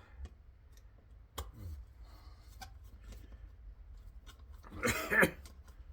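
Light clicks and rattles of small metal tools and parts being handled on a workbench, with a sharp click about a second and a half in and a louder burst of handling noise near the end.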